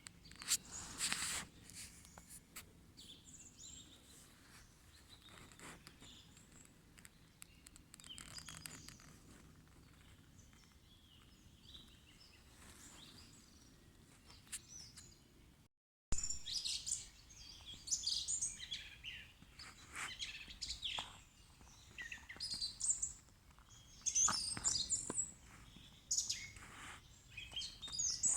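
Wild birds chirping and singing in a spring forest, many short high calls from more than one bird. A brief cut partway through, after which the chirping is busier and louder.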